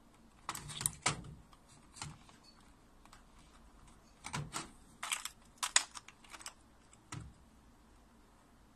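Scattered plastic clicks and taps in small clusters as wiring-harness plugs are pushed into their colour-matched sockets on a front-loading washing machine's replacement control board.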